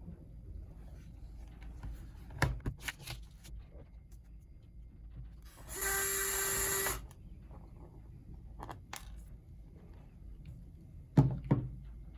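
A small electric screwdriver runs with a steady whine for about a second, midway through, amid clicks and knocks of tools and laptop parts being handled; the loudest knocks come near the end.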